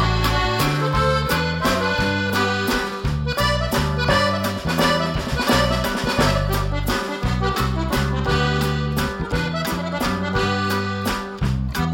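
Background music: a lively tune with a steady beat over a bass line that steps from note to note.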